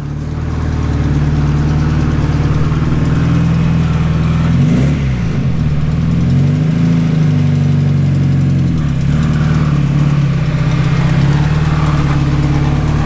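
Turbocharged Acura Integra's four-cylinder engine running as the car drives slowly up. The revs rise and fall twice around the middle, and otherwise the engine runs steadily.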